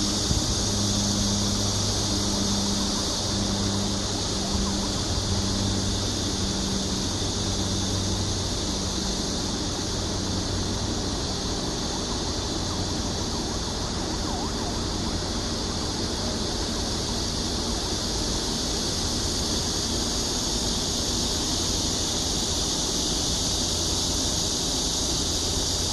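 Loud, steady rushing wind noise on the microphone during a parachute jump. A pulsing low aircraft-engine hum fades away over the first several seconds.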